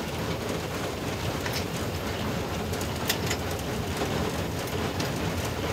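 Cab of a ČSD class 423.0 steam tank locomotive on the move: a steady rumble and hiss with a few sharp clanks, the loudest about three seconds in.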